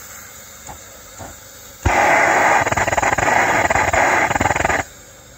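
Brass gas torch of an oxalic acid vaporizer lighting with a sharp pop, then burning with a loud, sputtering noise for about three seconds before cutting off suddenly. Sputtering like this is a sign that the gas pressure is set too high.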